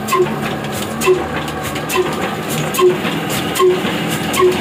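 Old 45 HP diesel oil engine running and driving a flour mill through flat belts and spinning pulleys. It makes a steady mechanical clatter, with a short, regular beat a little faster than once a second.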